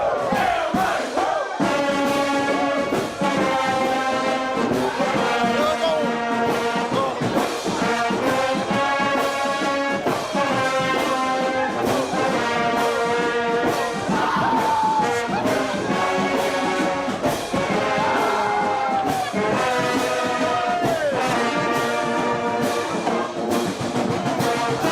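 Brass band playing, trumpets and trombones holding chords that change every second or two.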